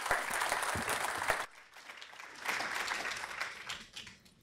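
Audience applauding. The clapping eases off about a second and a half in, swells again, then fades out near the end.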